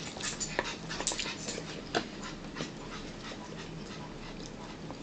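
Eating sounds at a table: a fork clicking and scraping against a plastic bowl, with scattered small clicks from chewing.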